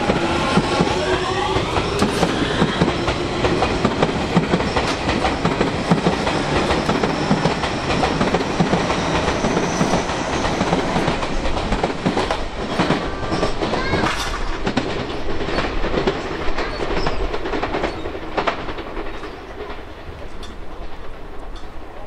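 Tobu 50090-series electric train pulling away and accelerating past, its traction motors whining up in pitch in the first few seconds. Then the wheels clatter over rail joints and points as the cars go by, fading near the end as the last car passes.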